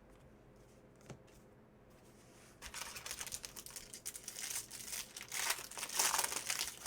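Foil wrapper of a trading card pack being torn open and crinkled, a loud crackling rustle for the last four seconds or so, after a quiet start with a single click.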